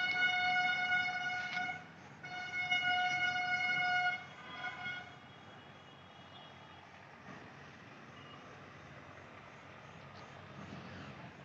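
A horn sounding three times on one steady pitch: two long blasts of about two seconds each, then a short, weaker one about five seconds in; after that only faint outdoor background noise.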